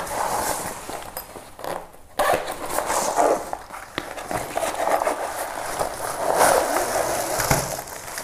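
Fabric carry bag rustling and plastic wrapping crinkling as a tripod is handled, in irregular bursts with a brief lull about two seconds in.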